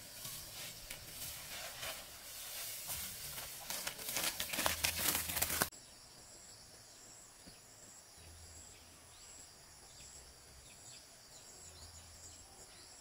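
Plastic sack of harvested rice being handled and tied, rustling and crinkling with scattered sharp crackles, stopping abruptly a little before halfway through. After that, a quiet background of steady high-pitched insect buzzing.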